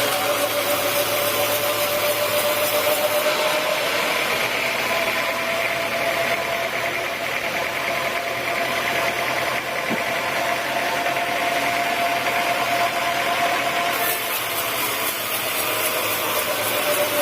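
Sawmill saw machinery running steadily, a constant hum with a noisy wash over it; its tone rises slightly a few seconds in and drops back near the end.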